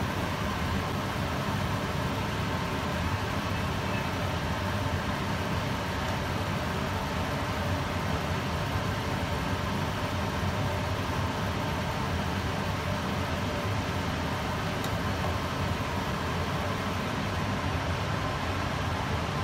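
Cola-braised pork ribs bubbling and sizzling in a wok as the sauce reduces over high heat, over a steady rushing noise.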